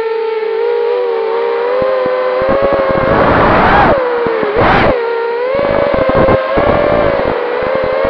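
FPV quadcopter's brushless motors and propellers whining in flight, the pitch mostly steady and rising sharply twice, about four seconds in and again a second later, as the motors spin up. A crackling rumble of rushing air on the onboard microphone runs underneath.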